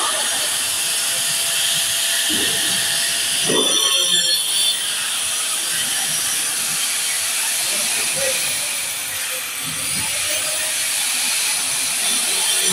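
Handheld angle grinder grinding into a concrete wall panel: a steady, loud hissing grind that dips briefly about nine seconds in.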